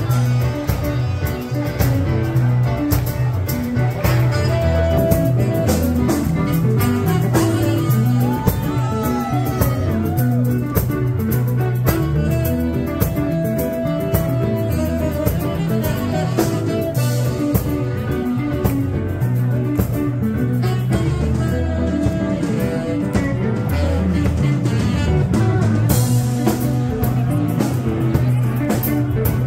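A live band playing bluesy rock with guitar, drum kit and saxophone, with a few long held high notes over a steady beat.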